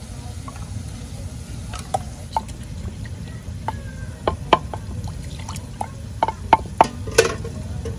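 Wooden pestle knocking in a small wooden mortar as ginger and garlic are pounded into a paste: sharp, irregular knocks that come more often and louder in the second half, over a steady low rumble.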